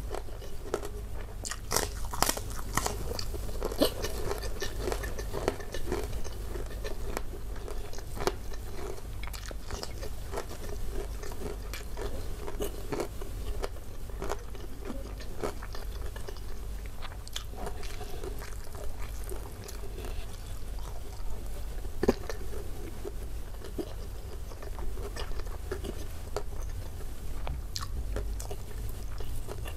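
Close-miked chewing of rendang beef with the mouth closed: wet mouth clicks and smacks throughout, with a few sharper clicks, the loudest about 22 seconds in. A low steady hum runs underneath.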